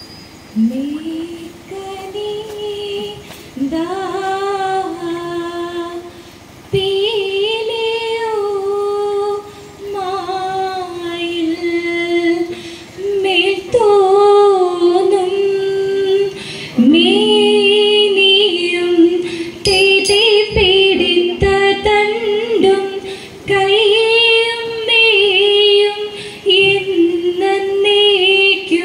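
Women's voices singing a Margamkali song, a slow melody of long held, gliding notes with no instruments behind it. A few sharp taps come about twenty seconds in.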